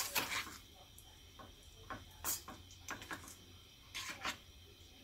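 Metal spoon stirring sliced strawberries and syrup in a small stainless-steel saucepan, with light, irregular scrapes and clinks against the pan.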